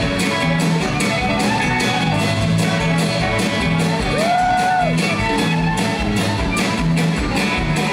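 Live folk-rock band playing a fast reel: fiddle lead over electric bass guitar and a steady drum beat of about four hits a second. A short rising-and-falling glide stands out about four seconds in.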